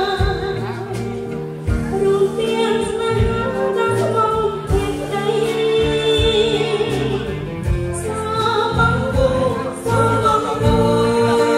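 A woman singing a Khmer song into a handheld microphone, with musical accompaniment. She holds long wavering notes over a steady beat.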